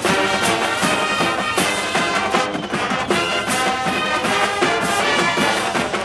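College marching band playing a loud brass-led passage, trumpets and trombones over a steady drum beat.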